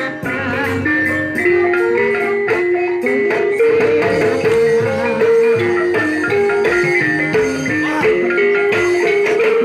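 Banyumasan gamelan music for ebeg dance: a melody of short struck notes on keyed xylophone-like instruments over drums, moving in steady steps.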